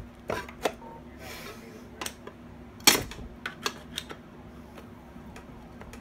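Scattered metallic clicks and taps of a screwdriver and hand tools working on a bench grinder's metal motor housing, with one sharp clank about three seconds in.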